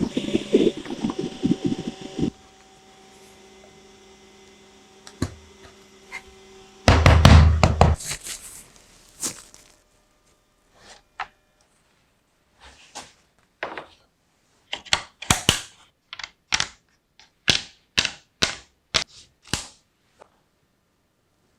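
One loud thump, then a run of short, sharp knocks and clicks that come closer together before stopping.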